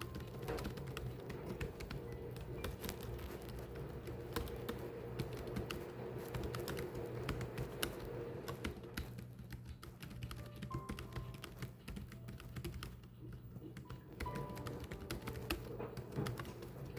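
Continuous typing: quick, irregular clicks of keys being struck one after another, several a second, with short pauses.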